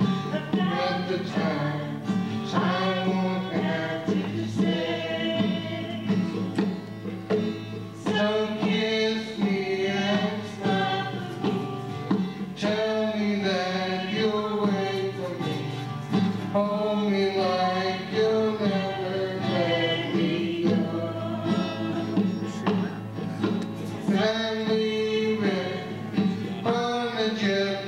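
Live amplified song: a man sings the lead into a handheld microphone over strummed acoustic guitar, with women's backing vocals joining in.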